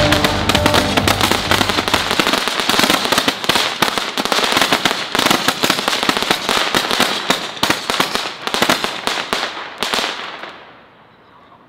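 Consumer fireworks crackling: a dense, rapid run of sharp pops and crackles from a ground-lit firework throwing crackling stars. It dies away about ten seconds in as the firework burns out.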